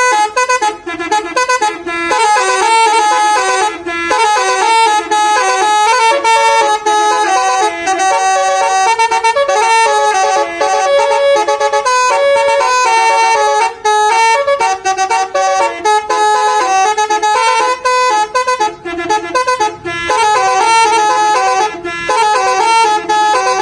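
A Basuri 'telolet' musical horn on a tour bus playing a tune: loud, continuous horn notes stepping quickly from pitch to pitch, with brief breaks between phrases.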